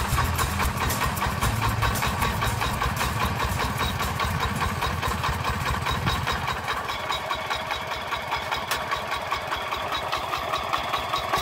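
The single-cylinder diesel engine of a two-wheel hand tractor running, with a rapid, even chugging beat of its firing strokes.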